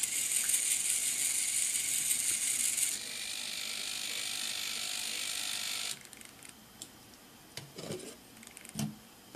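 Small continuous-rotation hobby servo motors whirring steadily as they turn 3D-printed turntables. The whir drops to a quieter level about three seconds in and cuts off about six seconds in. After that come a few light plastic clicks and knocks as the magnetic top plate is lifted off.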